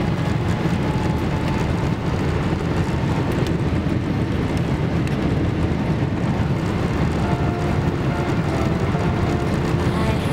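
Airliner cabin noise during the takeoff roll: a steady, loud low rumble of the engines and the wheels running down the runway, heard from inside the cabin.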